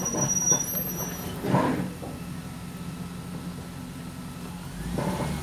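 Safari ride truck moving slowly, with a steady low engine drone. Brief louder noises come in the first two seconds, and the drone swells again near the end.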